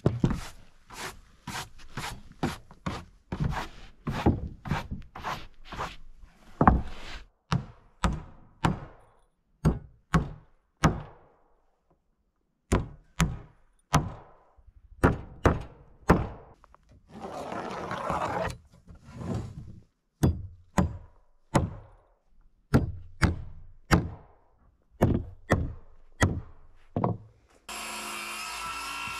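Hammer driving nails into wooden deck boards: a run of sharp knocks on wood, a few a second, with short pauses and a brief scrape about two-thirds of the way through. A steady mechanical whirring starts near the end.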